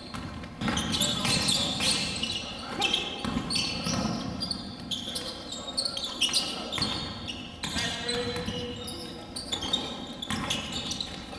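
Live gym sound of a basketball game on a hardwood court: the ball bouncing on the floor again and again, sneakers squeaking as players cut, with an echo from the big hall.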